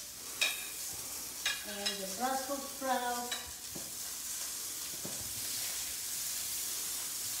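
Fennel and Brussels sprouts sizzling in a hot sauté pan as they are dropped in and stirred, with a few sharp clicks of the utensil against the pan. The sizzle grows fuller and steadier in the second half.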